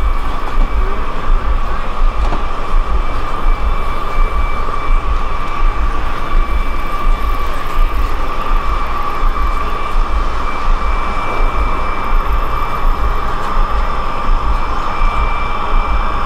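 Experimental drone soundscape: a dense, steady noise with a thin high tone held above it and an uneven low rumble throbbing beneath.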